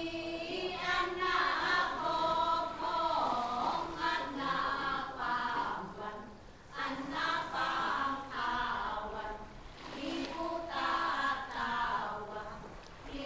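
A group of voices singing a traditional chant together in phrases, with short breaks between them: native Filipino music from Banaue, in the Ifugao tradition.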